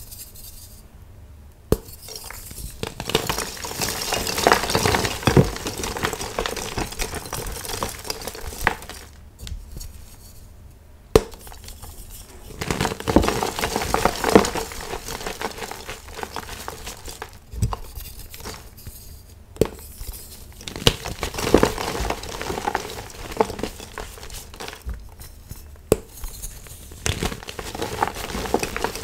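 Blocks of gym chalk crushed and crumbled by hand: dense crunching and crackling with sharp snaps as the pieces break apart, in several bouts with short pauses between.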